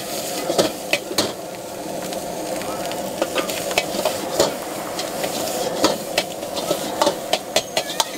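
Egg fried rice sizzling in a wok while a metal ladle stirs and scrapes through it, with frequent, irregular sharp clinks of the ladle striking the wok.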